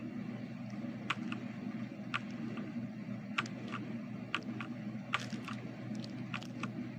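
Single keystrokes on a Machenike K500 mechanical keyboard: sharp separate clicks at an uneven pace, about one or two a second, some in quick pairs. A steady low hum sounds underneath.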